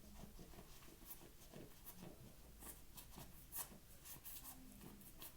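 Faint, irregular crackling scratches of cornstarch powder being handled or chewed, several small crunches a second.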